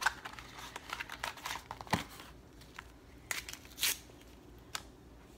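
Crinkling and rustling of a Veet wax strip box and its wax strips being handled and pulled apart, in short scattered bursts with a few sharper crackles about two seconds in and again near four seconds.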